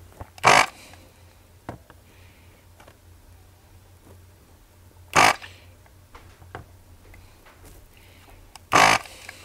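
Built-in vacuum pump of an S-993A electric desoldering gun firing three times, each a short harsh rasp about four seconds apart, as it sucks molten solder off keyboard circuit board joints.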